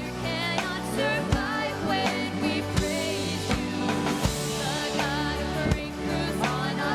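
Music with a singer and a band: a sung melody with vibrato over sustained chords, with a steady beat hitting about every 0.7 seconds.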